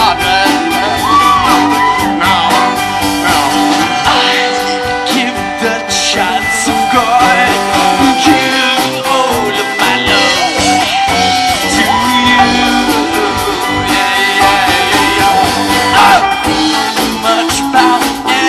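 Live band music: an upbeat song with guitar and vocals.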